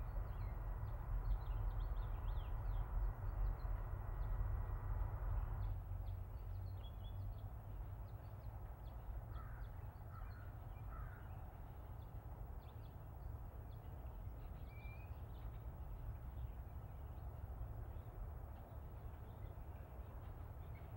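Outdoor ambience of birds calling now and then, with a cluster of louder calls about ten seconds in and a short rising call a little later, over a steady low rumble and a hiss that drops away about six seconds in.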